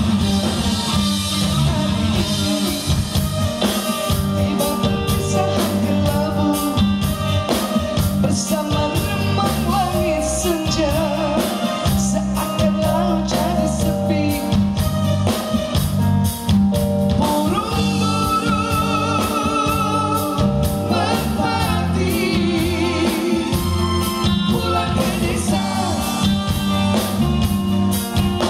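Live band playing a pop song: a woman singing through a microphone over electric guitar, keyboard and a drum kit keeping a steady beat.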